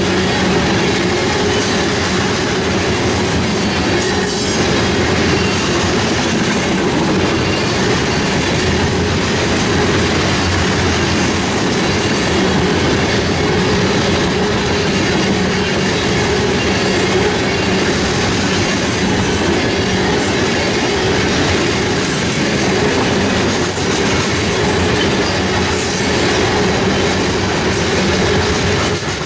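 A freight train of tank cars rolling steadily past, its steel wheels clattering over the rails in a continuous loud rumble.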